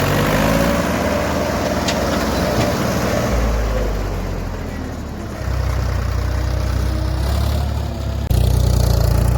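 A heavy diesel engine running steadily, its pitch shifting in the first second, with an abrupt change in the sound about eight seconds in.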